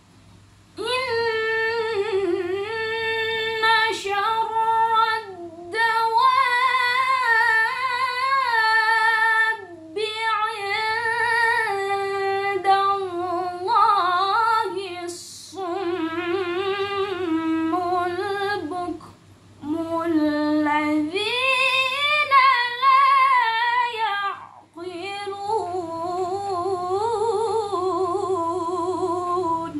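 A woman reciting the Quran in Arabic in the melodic, ornamented tilawah style, holding long wavering notes. The recitation comes in several long phrases, each broken off by a short pause for breath.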